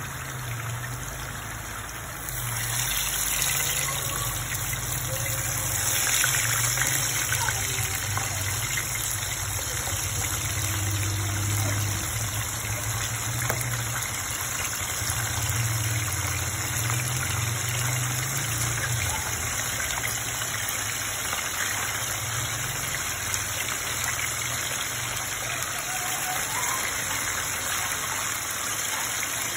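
Chicken pieces cooking in oil in a pot on a gas burner: a steady sizzling hiss with faint crackles that grows louder about two and a half seconds in, over a low hum.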